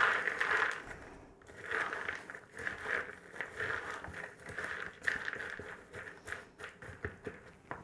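Popcorn and roasted nuts being stirred together in a bowl: a dry rustling and crunching in repeated strokes, with small clicks mixed in.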